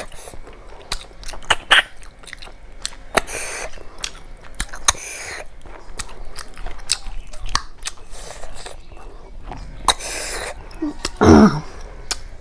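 Close-miked eating of snail curry by hand: wet chewing, lip smacks and mouth clicks as snails are sucked from their shells. About eleven seconds in comes a brief, louder pitched sound that slides down in pitch.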